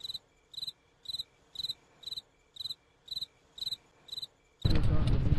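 A cricket chirping steadily, short high chirps at about two a second. Near the end a loud rush of wind buffeting the microphone cuts in.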